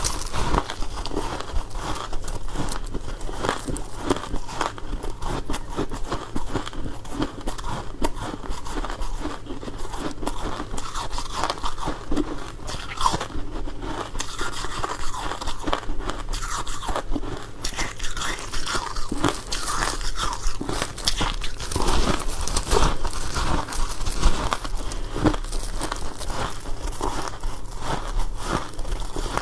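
Close-miked crunching and chewing of powdery freezer frost: a dense run of soft crackling crunches with each bite and chew, going on without pause.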